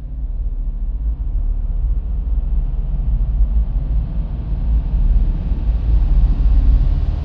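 A deep, steady rumble that slowly grows louder and brighter, with a hiss rising above it.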